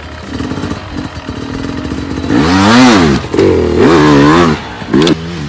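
Dirt bike engine running low, then revved hard twice, its pitch rising and falling each time, about two and a half and four seconds in, with a short sharp throttle blip near the end.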